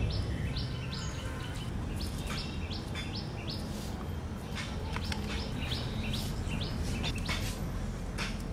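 Small birds chirping outdoors: runs of short, high chirps repeated about three a second, over a steady low background rumble.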